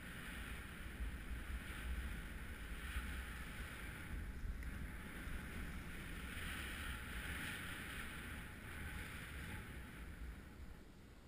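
Skis sliding down packed snow, a steady scraping hiss that swells and fades with each turn and change of speed. Wind rumbles low on the microphone throughout.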